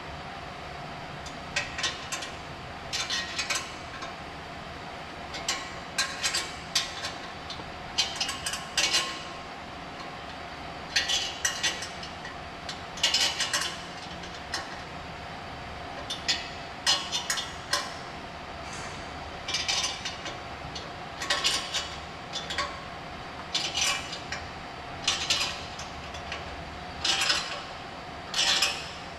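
Metal hand tools clicking and clinking on exhaust fittings in short bursts, every second or two, over a steady background hum.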